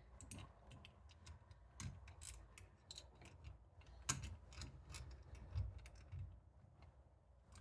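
Faint, irregular small clicks and ticks of doorknob hardware being handled while a mounting screw is lined up and started, with one louder click about four seconds in.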